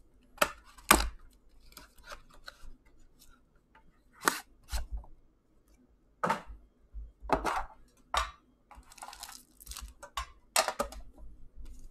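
Plastic shrink-wrap being torn and peeled off a hockey card box, with scattered sharp clicks and taps as the box and its inner plastic case and tray are handled, and a stretch of crinkling near the end.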